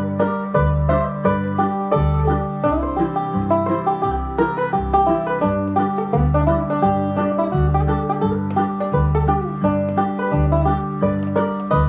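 Resonator banjo picked in fast, continuous runs of bright plucked notes over a steady alternating bass line.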